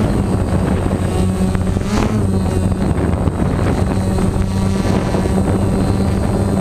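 Small multirotor drone's electric motors and propellers humming steadily while it hovers and climbs slowly, close to the camera.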